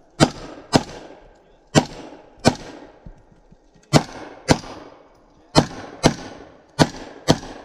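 AR-15 rifle firing ten rapid semi-automatic shots in five pairs, each pair about half a second apart with a short pause between pairs as the shooter moves to the next target. Each shot is a sharp crack with a brief ringing tail.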